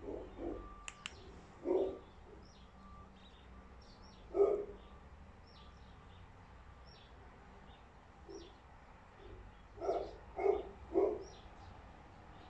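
A dog barking in short single barks at irregular gaps, with a quick run of three barks near the end.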